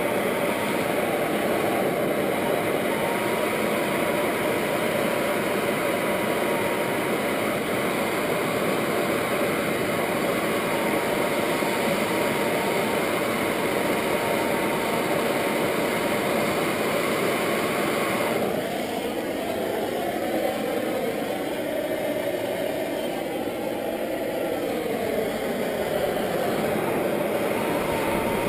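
Plumber's torch flame roaring steadily, as when heating a copper pipe joint for soldering. About two-thirds of the way through the hiss dulls and takes on a slowly shifting, swooshing tone.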